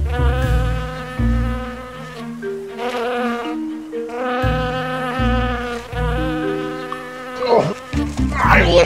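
A loud, insect-like buzz that wavers slightly in pitch and breaks off twice, over background music with a stepping bass line and held chords. Near the end a sweeping, whooshing sound comes in.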